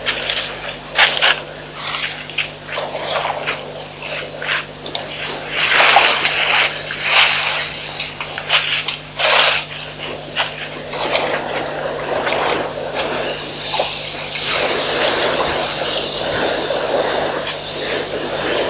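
African elephants drinking at a waterhole: water splashing and gushing in irregular bursts as trunks draw up and spray water, turning into a steadier rushing splash a little past halfway.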